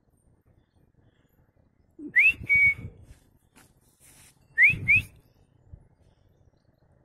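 A person whistling to call a dog: a rising whistle followed by a short level one about two seconds in, then two quick rising whistles a couple of seconds later.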